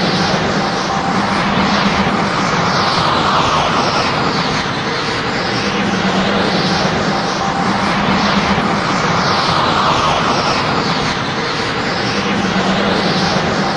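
Anime power-up aura sound effect: a continuous rushing, crackling energy noise over a low hum, swelling and easing in slow waves about every six seconds.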